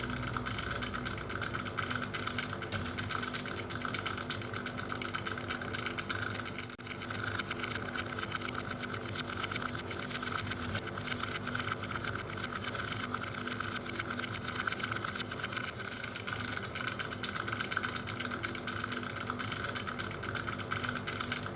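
Corona CD-P6315 clothes dehumidifier running with a steady, rapid rattling (kata-kata) from inside: the abnormal noise it makes in eco/economy mode, which the owner traces to a metal fitting inside the unit.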